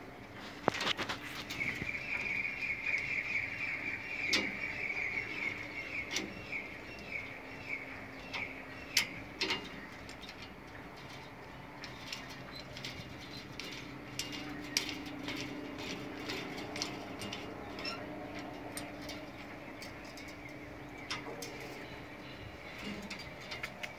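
Irregular sharp metal clicks and scrapes from hand tools working the end of a copper-sheathed mineral-insulated (MICC) cable and its brass gland, denser in the first half. A high warbling chirp runs over the first several seconds.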